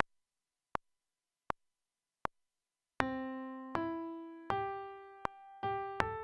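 Four clicks, evenly spaced like a metronome count-in, then a sampled Steinway grand piano plays the dictation melody at the same pulse, one note per beat with a quicker pair of notes near the end, over a low accompaniment.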